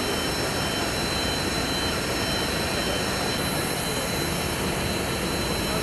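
Jet aircraft turbine running steadily: an even rushing noise with a fixed high-pitched whine over it.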